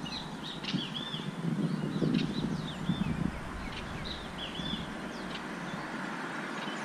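Birds calling in short, quick chirps, repeated many times and thinning out after about four or five seconds, over an uneven low rumble.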